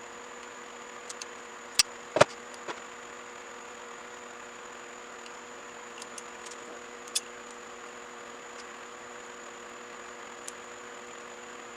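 A steady mechanical hum of several even tones with a faint high whine, broken by a few sharp clicks or knocks, the loudest pair about two seconds in and another about seven seconds in.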